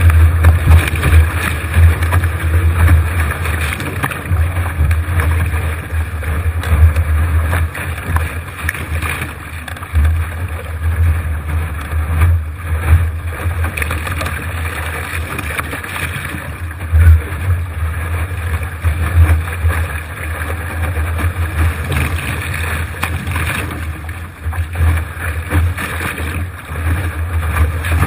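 Wind buffeting the deck-mounted microphone in uneven gusts, over a steady rush and spray of water along the hull of a Laser sailing dinghy driven hard in strong wind.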